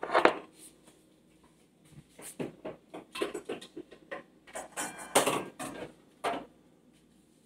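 Kitchen items and spice containers being handled and set down: a sharp knock at the start, then scattered light knocks and rattles in short clusters.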